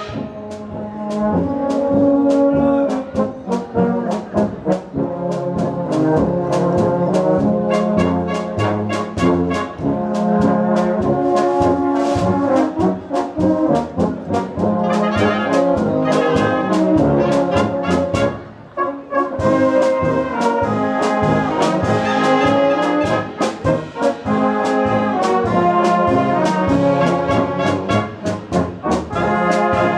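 A Bohemian-style brass band playing live, trombones and trumpets carrying the tune over a steady beat, with a brief break about two-thirds of the way through.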